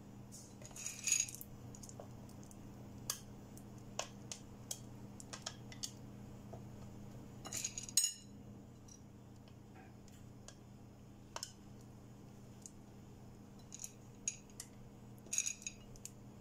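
Light, scattered clicks and clinks of chocolate chips being picked off a ceramic plate and set onto batter in a metal muffin pan, with a few louder clusters of clinks, over a faint steady low hum.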